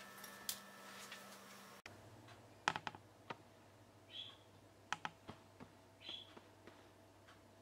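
Near silence broken by a few faint, sharp clicks and three faint short chirps about two seconds apart.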